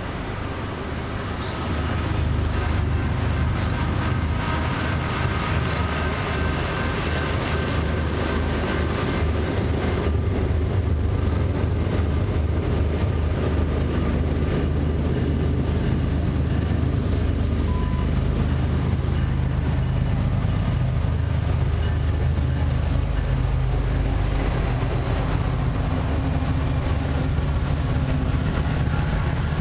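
CN freight train's diesel locomotives approaching and passing close by. The low engine drone swells about two seconds in and then holds loud and steady, with the locomotives going by near the end.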